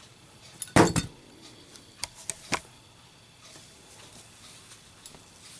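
A Zippo lighter with a steel insert dropped onto a surface: a sharp double knock as it lands about a second in, then a few lighter clicks as it settles.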